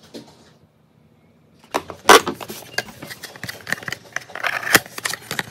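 Cardboard gift-box packaging being handled and opened: a busy run of scrapes, taps and rustles starting about two seconds in, with a few sharper snaps.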